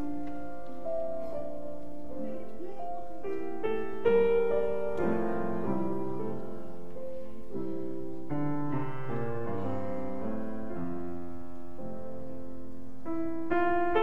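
Background music: a gentle piano melody played with sustained notes.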